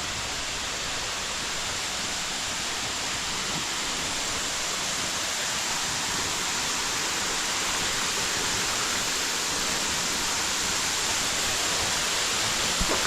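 Waterfall rushing, a steady hiss of falling water that grows slightly louder. A brief knock comes near the end.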